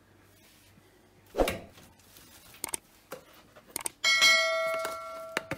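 Metal cookware struck once, ringing with a bell-like tone that fades away over about a second and a half. Before it come a dull knock and a few light clicks of kitchenware being handled.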